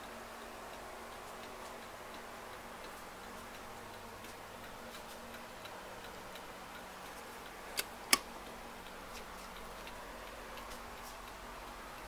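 Seth Thomas 89 AL key-wound tambour mantel clock ticking steadily and faintly, with two sharp clicks close together about eight seconds in.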